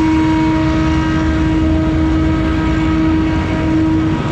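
Scag Windstorm stand-on blower running steadily, its engine and fan giving a constant whine over a low rumble.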